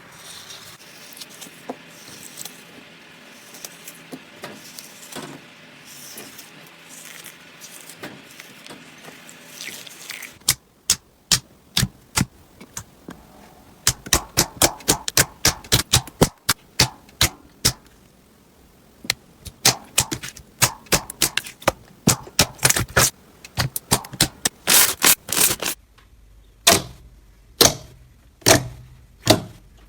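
Hands playing with slime. A soft crackling fills the first ten seconds, then comes a long run of sharp, crisp pops and clicks, like air pockets in crunchy slime being squeezed and poked.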